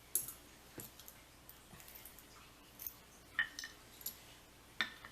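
Small metal lock pins and tools being handled, giving about six light, scattered clicks and taps.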